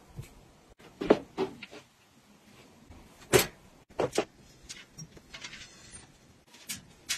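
A string of sharp knocks and clicks from objects being handled in a room, about a dozen in all, the loudest a single knock about three and a half seconds in. In the second half a freestanding swivel mirror with a tubular metal frame is taken hold of and turned, giving lighter clicks and taps.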